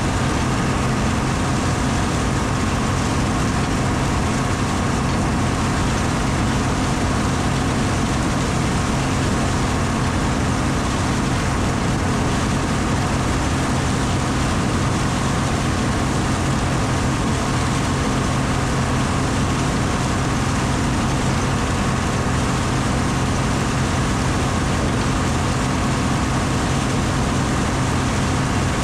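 Combine harvester's diesel engine running steadily while it warms up: a constant, unchanging hum.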